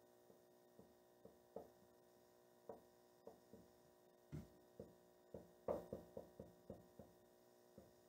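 Faint short squeaks and taps of a dry-erase marker writing on a whiteboard, coming more often in the second half, over a low steady hum.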